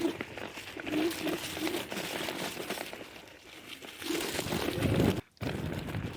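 Yume Y10 electric scooter ridden over a dirt road: a dense, irregular crunching and crackling from the tyres on loose dirt and gravel. It cuts out for a moment about five seconds in.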